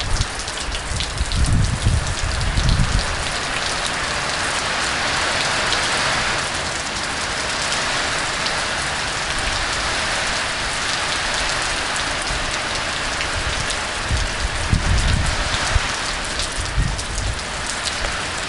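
Heavy rain pouring steadily, a dense hiss of falling water. Low rumbles rise under it a second or two in and again near the end.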